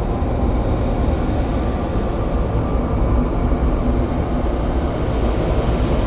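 Experimental drone music: a dense, steady low rumble with no beat or melody.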